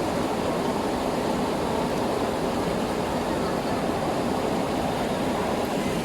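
River water flowing, a steady even rush with no distinct splashes.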